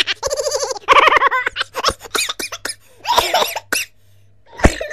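High-pitched laughter in quick repeated bursts, trailing off into shorter breathy giggles and gasps.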